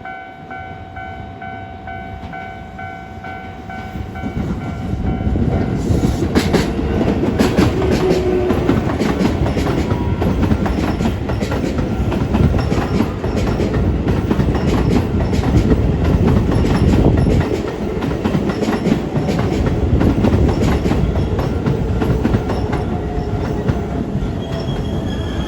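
Level-crossing warning bell ringing. A Keisei 3700-series electric commuter train then passes through the crossing, its wheels clacking rhythmically over the rail joints, and its noise drowns out the bell for most of the time. The bell tones are heard again near the end as the train noise eases.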